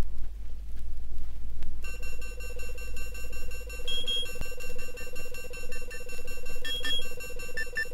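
Early electronic library music: a low hum with noise gives way about two seconds in to a cluster of steady, held electronic tones at several pitches, with short high beeps sounding over them.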